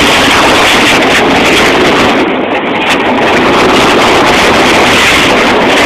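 Loud, steady rush of wind buffeting the microphone over the pickup truck's running engine and tyres as it spins donuts, heard from the truck's open bed.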